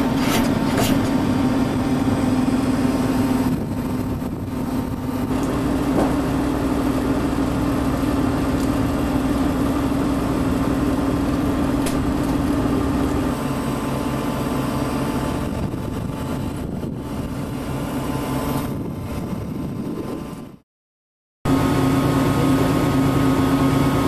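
A fishing boat's engine running steadily at idle, a constant low drone. Near the end the sound cuts out completely for under a second, then the drone comes back with a slightly different tone.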